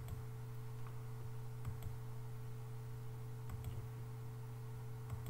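Faint scattered clicks from a computer's mouse and keys, some in close pairs, over a steady low electrical hum.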